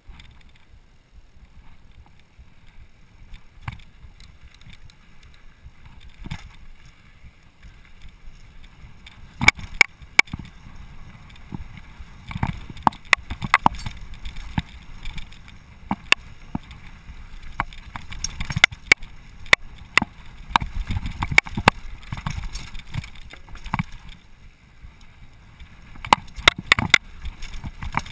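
Mountain bike descending a rough dirt and rock trail: a steady rumble of wind and tyres, with sharp clacks and rattles of the bike over bumps that start about a third of the way in and come thickly from then on.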